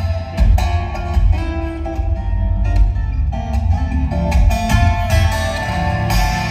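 Amplified steel-string acoustic guitar played solo fingerstyle: melody notes ringing over deep bass notes, with frequent sharp percussive attacks.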